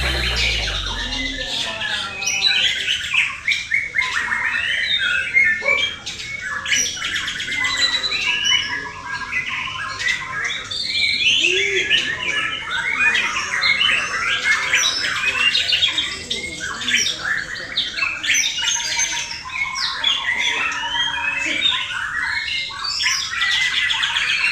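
Male white-rumped shama (murai batu) singing a continuous, varied song of rapid warbled and chattering phrases, in the full competition-style repertoire.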